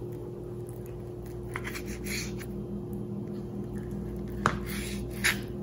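Kitchen knife slicing raw salmon on a plastic cutting board: a few short, soft slicing strokes over a steady low hum.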